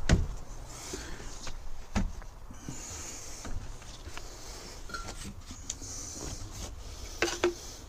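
Scattered light clicks and knocks of small weedeater engine parts being handled on a workbench.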